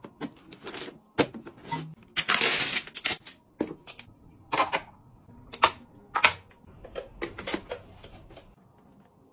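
Hard plastic clicks and knocks as a wall-mounted plastic bathroom box and a plastic bottle are handled, about a dozen sharp hits, with a scraping, rustling noise lasting about a second around two seconds in.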